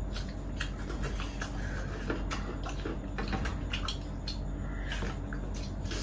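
Two people gnawing and sucking meat off braised bones: wet smacking, slurping and chewing with many small clicks.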